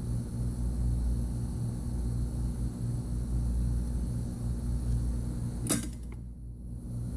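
Steady low mechanical hum, like a fan or air blower running, with a single sharp click about five and a half seconds in.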